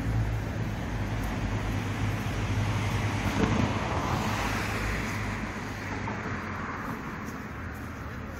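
Road traffic: a car passing on the street, its tyre and road noise swelling to a peak about halfway through and then fading away, over a low engine hum.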